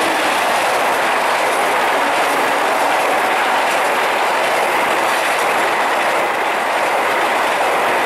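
Passenger train hauled by a CC 203 diesel-electric locomotive passing close by at speed, its coaches going by in a steady, loud rush of wheels on rail.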